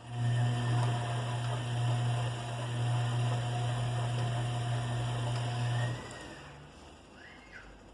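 Bosch washing machine with a full load, giving a steady mechanical hum with a rushing noise that starts suddenly and cuts off about six seconds in.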